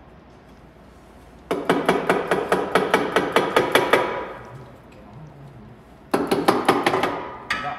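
Pneumatic impact wrench hammering in two rapid bursts as it loosens bolts, the first starting about one and a half seconds in and lasting a couple of seconds, the second starting about six seconds in and shorter, each winding down as the bolt lets go.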